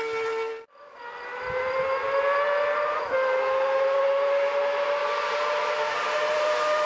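Honda CBX1000's air-cooled inline-six engine revving hard with a high, steady whine. It cuts out briefly just under a second in, returns climbing in pitch, steps down slightly about three seconds in, then climbs again.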